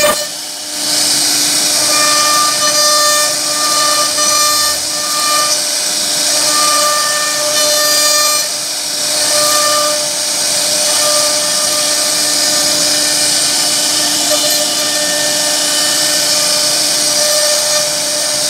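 CNC router spindle running at high speed with its carving bit cutting a relief pattern into a wooden panel: a steady high whine and hiss, with a higher tone coming and going during the first half as the load on the cutter changes.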